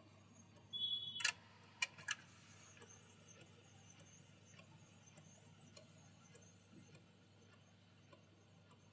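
Epson L8050 inkjet printer's mechanism working during a print job. About a second in there is a brief high whine, followed by three sharp clicks, then a faint steady hum with light ticking as the paper is drawn slowly through.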